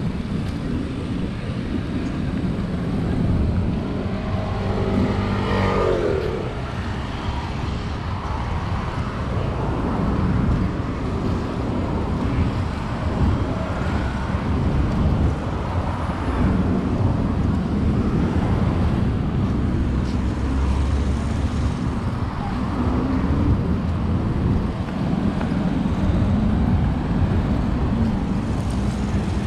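Steady road traffic: cars and vans running along a busy city avenue.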